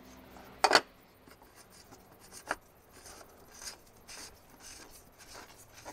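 Oil filter housing cap being screwed back down by hand: a couple of sharp clicks near the start and another about two and a half seconds in, then soft, irregular scraping and rubbing.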